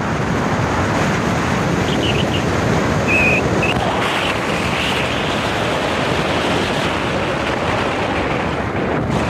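Wind buffeting the microphone of a moving car, mixed with road noise, a steady loud rush. A few short high chirps sound about two to three seconds in.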